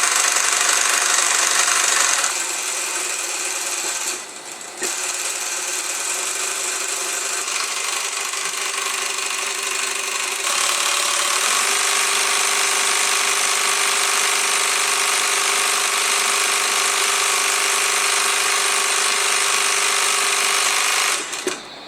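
Juki 341N industrial cylinder-bed sewing machine running fast with the presser foot raised, winding a bobbin on its built-in bobbin winder. It slows about two seconds in, dips briefly around four seconds, speeds up again about ten seconds in and stops just before the end.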